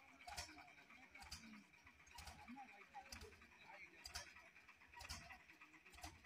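Near silence, with faint sharp ticks about once a second over a faint steady high-pitched hum.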